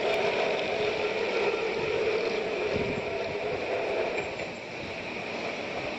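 Bombay BEST electric tram running along street rails, a steady mechanical running sound that dips briefly near the end.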